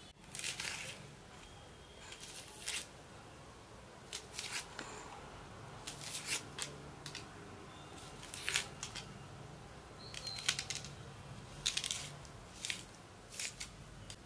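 Small serrated kitchen knife scraping through garlic and peeling the papery skin off a red onion by hand: short, irregular dry scrapes and crackles, one every second or so.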